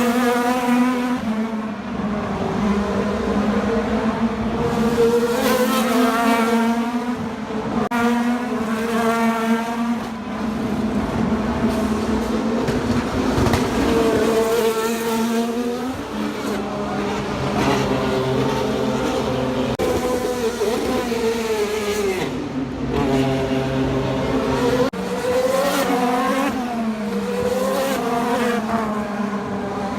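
IndyCar race cars' twin-turbo V6 engines running at speed as cars pass one after another, the engine pitch climbing and falling with each pass.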